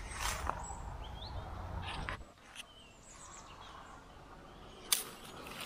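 Leafy branches rustling and brushing as they are grabbed and pulled, with small birds chirping now and then and one sharp snap near the end.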